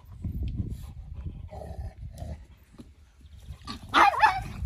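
A pet animal's low rumbling vocalising, then a short, loud, wavering high-pitched cry about four seconds in.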